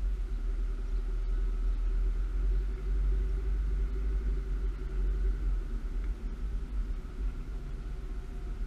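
A car driving along a paved road, heard through a camera mounted on the outside of the car. There is a heavy, steady low rumble of wind and road noise on the microphone, with a steady hum from the moving car over it.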